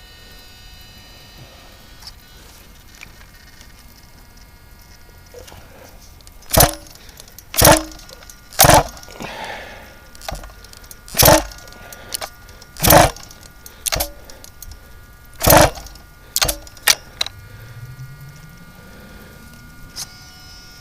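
The pull-start cord of an RCMAX 90cc two-stroke petrol engine on an HPI Baja RC truck, yanked about nine times in short, sharp strokes a second or so apart, the engine not catching. The choke could not be set because a clamp blocked its lever.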